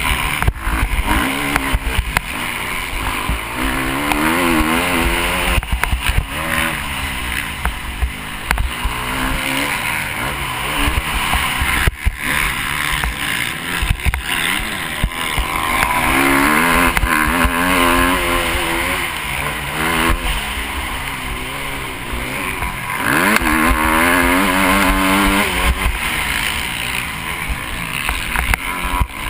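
KTM SX350F's single-cylinder four-stroke engine heard onboard while racing on a dirt track, the revs repeatedly climbing and dropping back as the rider accelerates, shifts and rolls off for corners, over a constant rough rumble.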